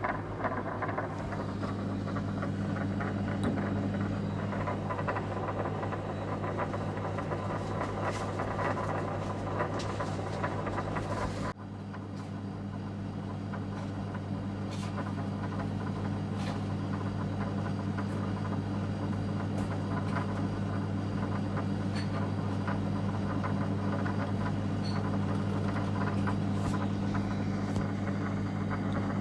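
Steady low mechanical hum, like a running engine or machine, with a few faint scattered knocks. It breaks off abruptly about eleven seconds in and resumes at once, slightly quieter.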